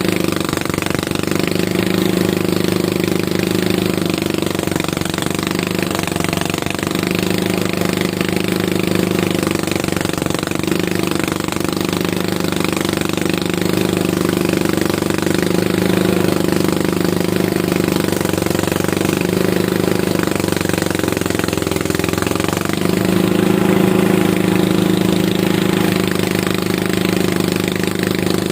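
Engine of a rice-harvesting machine running steadily under load, a continuous rough drone with brief slight swells in level.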